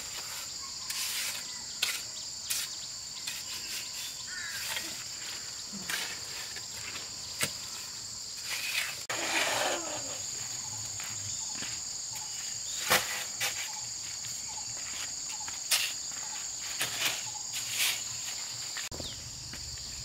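Steady high-pitched insect chorus, as of crickets or cicadas, carried on without a break. Scattered sharp knocks come over it now and then, with a scraping rustle about nine seconds in.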